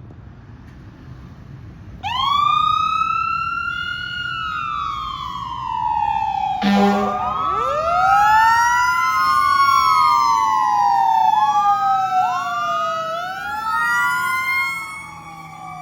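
Fire engine siren wailing, starting about two seconds in, sweeping up and down in pitch with several wails overlapping. A short blast of the truck's air horn comes about halfway through.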